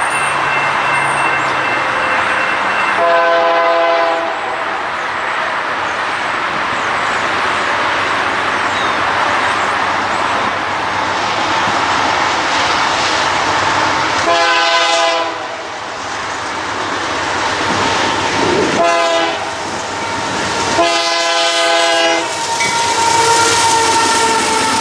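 A Canadian Pacific freight locomotive's air horn sounds four blasts, the third one short, over the growing rumble of the approaching train. Near the end the locomotives pass close by.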